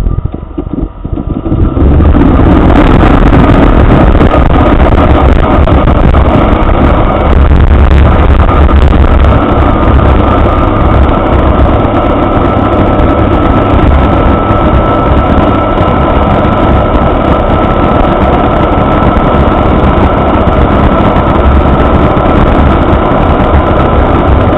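An Avid Flyer's inverted Rotax 582 two-stroke engine and wooden three-blade propeller running, heard loud from inside the cockpit. The sound is uneven for about the first two seconds and then holds steady, with a deep rumble and a thin steady whine over it.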